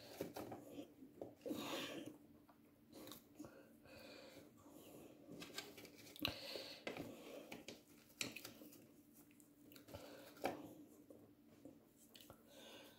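Raw sweet potato chips coated in spice mix and olive oil being tossed by hand on a plate: faint, irregular clicks and rustles as the pieces knock and slide against each other.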